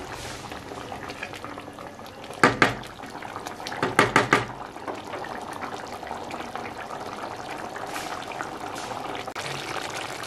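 Chicken curry boiling vigorously in an aluminium pot: a steady bubbling and popping of thick sauce. A couple of sharp knocks come about two and a half seconds in, and a quick run of four more follows around four seconds in.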